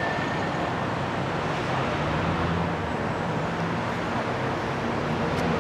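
Steady engine hum and road noise of a coach, heard from inside the cabin while it drives.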